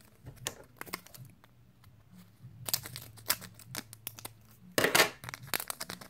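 Naruto CCG booster pack wrapper being torn open and crinkled by hand: a run of sharp crackles and rustles, loudest about five seconds in.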